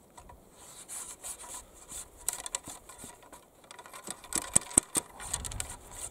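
Loading a percussion smoothbore muzzleloader: flax-fibre wadding worked down the muzzle over the black-powder charge, with irregular scraping and rubbing and sharp taps, loudest in a quick cluster of taps past the middle.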